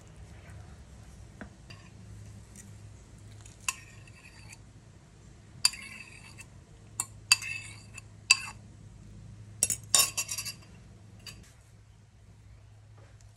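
A small stainless steel pot knocking against a stainless steel mixing bowl as egg and melted butter are poured in: a run of about a dozen sharp, ringing metallic clinks, most of them between about four and ten and a half seconds in.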